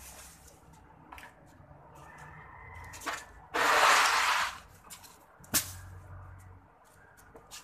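A broom swept across a concrete floor, one loud brushing stroke about halfway through pushing fallen fruit and leaves, followed shortly by a sharp knock and a few lighter clicks.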